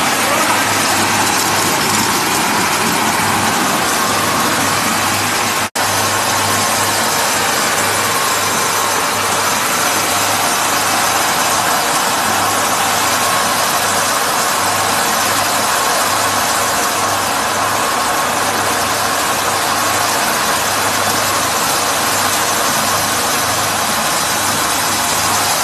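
Small electric-motor-driven feed machinery, a feed mixer with auger conveyor and a flat-die pellet mill, running under load with a steady, loud mechanical noise and a low hum. The sound drops out for a split second about six seconds in.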